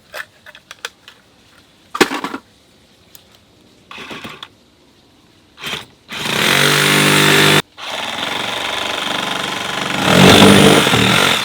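A cordless power driver backing out deck screws from rotten deck boards. After a few knocks and short bursts, it runs for about a second and a half and stops abruptly, then runs again for nearly four seconds, louder near the end.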